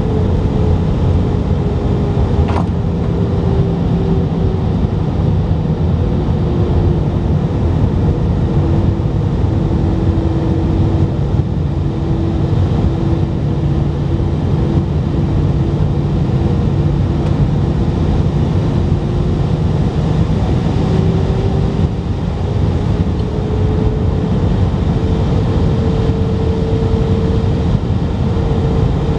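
Airbus A319 cabin noise over the wing in descent: a steady loud rush of airflow and engine drone. An engine tone sinks lower over the first several seconds, holds, then climbs back up about twenty seconds in, following changes in engine thrust. A brief click sounds about two seconds in.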